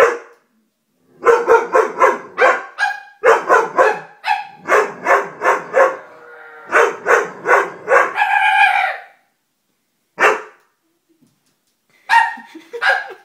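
A young Doberman barking in quick strings of short, loud barks, about four a second, with a longer drawn-out bark about eight seconds in and a few single barks near the end.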